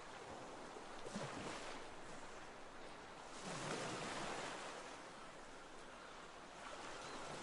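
Faint ocean water sound: a rushing wash that swells and fades every couple of seconds, like waves.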